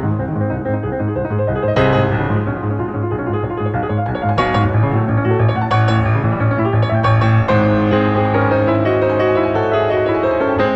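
Background piano music, with new chords struck every second or two over a sustained low bass note.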